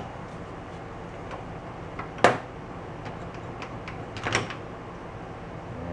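Metal-on-metal clacks from a Honda SL125's aluminium crankcase half being lifted off over the transmission shafts and gears: one sharp clack about two seconds in, then a short cluster of clicks a couple of seconds later. A low steady hum sits underneath.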